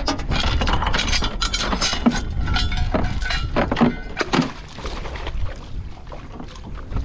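Clattering, clinking and knocking as a crab pot is handled in an aluminium tinny: many quick knocks and rattles, busiest over the first five seconds and easing off after that, over a steady low rumble.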